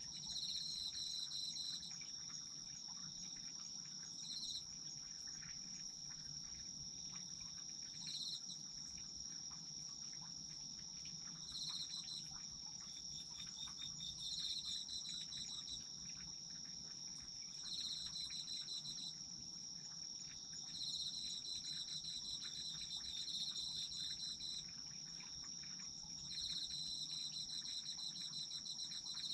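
A chorus of autumn insects, crickets among them. One keeps up an unbroken high-pitched trill, while another gives repeated bursts of pulsed chirping, each lasting about a second or two and coming every few seconds.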